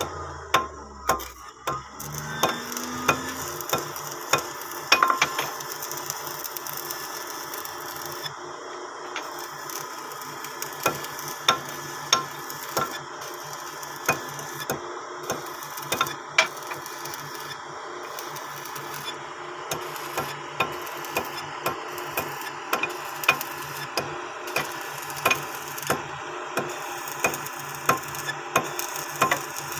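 Electric arc welding on steel boat plating: a steady crackle with frequent sharp ticks and pops.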